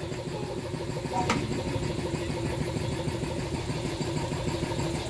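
A machine running steadily at an even idle, with fine regular pulsing like an engine idling, and one sharp click about a second in.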